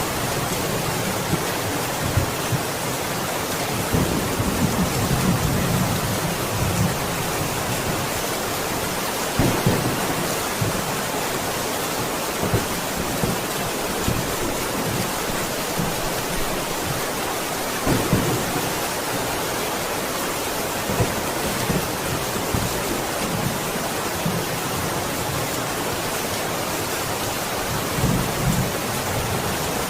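Steady heavy rain with thunder rumbling low at intervals, swelling several times, most strongly around 4 to 6 seconds in, near the middle and near the end.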